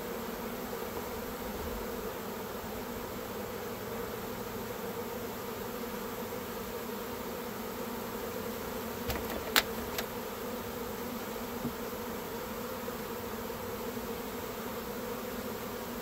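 Steady, dense buzzing hum of a honey bee swarm of many thousands of bees. A few sharp taps come a little past halfway.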